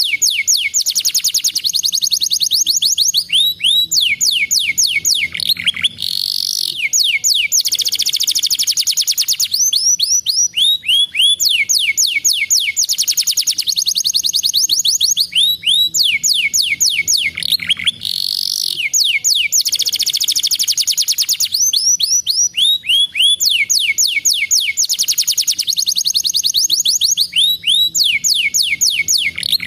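Domestic canary singing: fast, high trills of rapidly repeated notes, broken by short rising sweeps. The same run of phrases comes round about every twelve seconds.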